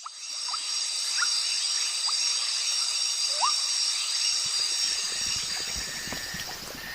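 Outdoor nature ambience: a steady high insect chorus with a few short rising chirps. A low crackling, rustling noise joins about five seconds in.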